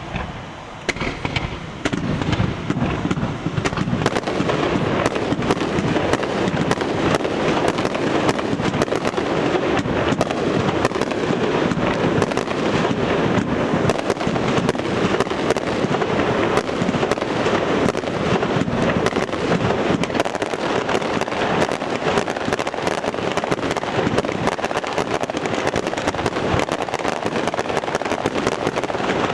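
A fireworks display going off. After a sparser first couple of seconds, it becomes a dense, continuous barrage of bangs and crackling.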